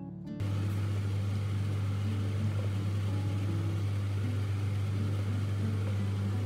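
Steady low hum with an even rushing noise from a running kitchen appliance at the stove, such as a cooker hood fan, starting abruptly about half a second in.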